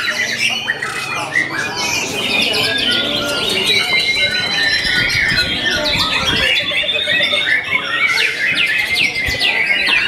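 Caged white-rumped shamas (murai batu) singing over one another in a dense, unbroken chorus of rapid whistles, trills and harsh chattering notes.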